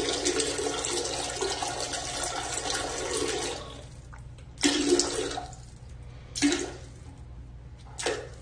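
Water rushing for about three and a half seconds, then several short spurts of water about a second and a half apart.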